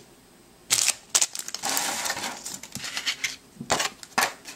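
Foil trading-card booster packs crinkling and rustling as they are handled, an irregular run of crackles and taps starting about a second in.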